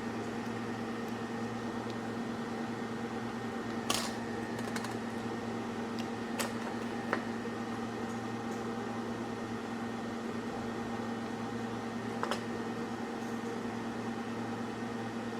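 Steady electrical hum from repair-bench equipment, with a few sharp clicks from handling tools and parts, about 4, 6.5, 7 and 12 seconds in.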